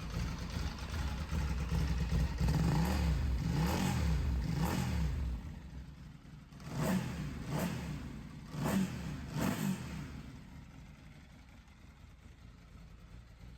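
Bimota DB6 Delirio's 1000cc Ducati L-twin engine running, revved in three quick rising-and-falling blips and then four shorter ones. The sound then dies away near the end.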